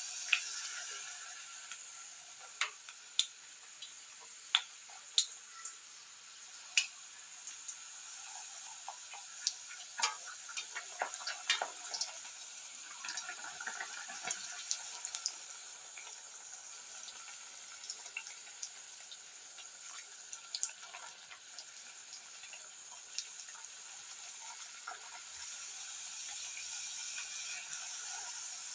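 Small rounds of puri dough deep-frying in hot oil: a steady sizzle with scattered sharp pops and crackles, busiest around ten to fifteen seconds in.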